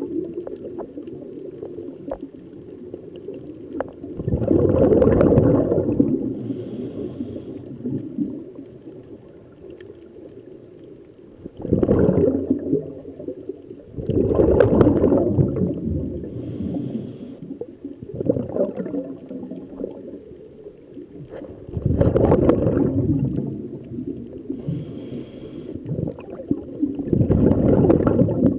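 Scuba regulator breathing underwater: slow breaths, each exhale a loud rush of bubbles lasting a second or two, several seconds apart. Between some of them comes a fainter high hiss of the inhale through the regulator.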